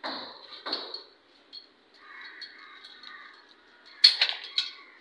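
Red hand pipe cutter working on a white plastic water pipe: scraping noises in the first second, then a quick run of sharp clicks about four seconds in, the loudest part.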